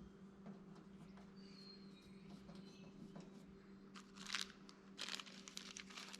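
Faint steady hum with light clicking and rattling of small parts, the loudest clicks about four seconds in and again near the end.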